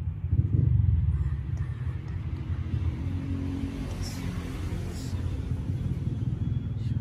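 Steady low rumble, briefly louder about half a second in.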